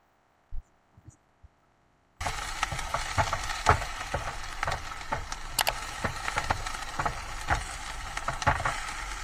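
Near silence with a few faint knocks, then about two seconds in, onions and sausage start frying in a pan on a single-burner gas stove: a steady sizzle, with a wooden spoon clicking and scraping against the pan as it stirs.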